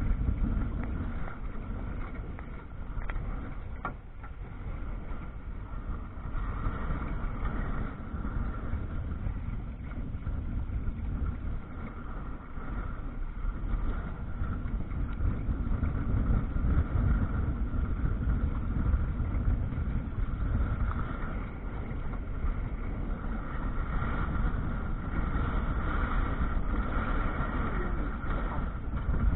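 Wind buffeting the microphone in a steady low rumble, with water rushing and splashing along the hull of a sailing canoe under way in choppy water.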